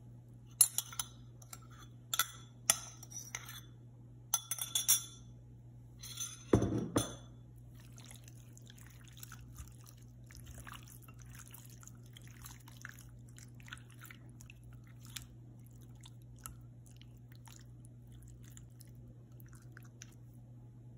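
A metal spoon clinks and scrapes against a ceramic bowl, several sharp clinks over the first seven seconds, ending in a heavier knock as the bowl is set down on the counter. After that come faint wet squishing sounds of hands rubbing marinade into raw chicken thighs, over a steady low hum.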